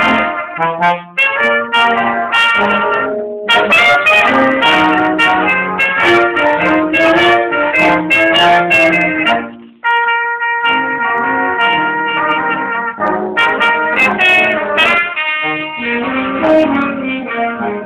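A small brass ensemble of trombone and trumpets playing a piece together live in a room. The music breaks off briefly about three seconds in and again near ten seconds, where a new phrase starts on a held chord.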